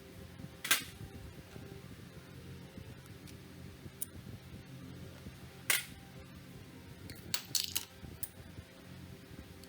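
A few sharp clicks and taps, like metal tools and parts being handled and set down, over a low steady hum. There is one click about a second in, another just past the middle, and a quick run of four or five near the end.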